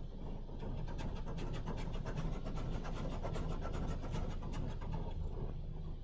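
High-pressure rinse of a Futura Revolution in-bay automatic carwash spraying water against a car, heard from inside the cabin: a steady rumble with a rapid patter of water striking the glass and body. It builds about a second in and eases near the end.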